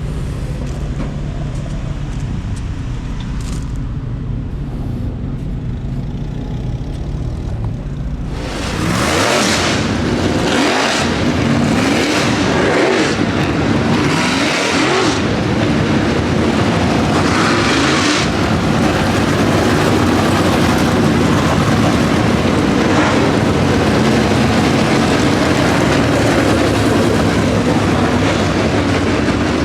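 Race car engines running: a steady low rumble that turns much louder about eight seconds in, with revs rising and falling, as of several dirt late models rolling around the track.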